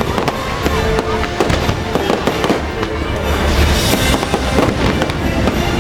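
Fireworks bursting and crackling in quick, dense pops throughout, over the fireworks show's music playing on loudspeakers.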